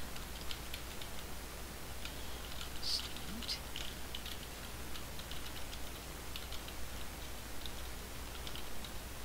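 Computer keyboard being typed on: scattered runs of faint key clicks over a low steady hum.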